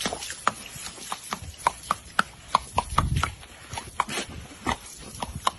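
A run of light, sharp taps or clicks, irregularly spaced at about three a second.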